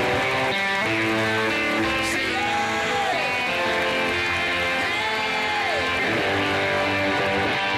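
Live rock band playing the opening of a song, with guitar chords ringing out and a lead line that bends down in pitch twice.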